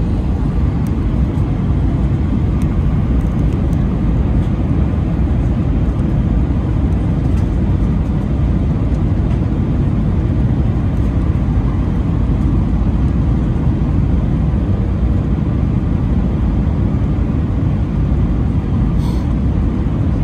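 Steady low rumble of an Airbus A319's engines and airframe heard from inside the passenger cabin.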